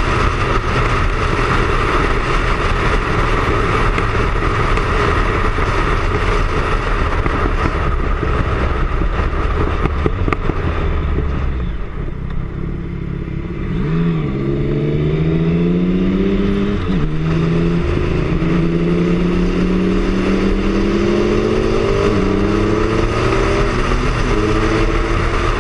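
Triumph Speed Triple's three-cylinder engine heard on board at road speed under loud wind rush. About halfway through the sound eases off briefly, then the engine note climbs through the gears, dropping back at each upshift.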